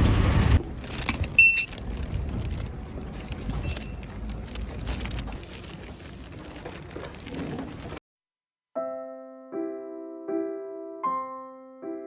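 Gentle piano music begins about nine seconds in, with single notes over held chords. Before it comes a steady background noise with a few faint clicks, which cuts off abruptly just before the piano starts.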